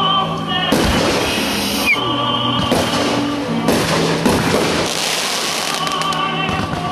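Fireworks bursting and crackling in quick succession over loud music with long held, wavering notes. The first big burst comes just under a second in.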